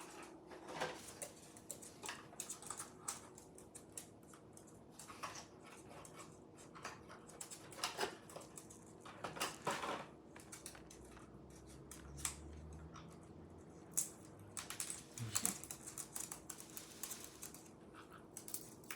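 Scattered light clicks and taps, coming irregularly, from small pet parrots moving about and handling things with their beaks and feet, over a faint steady room hum.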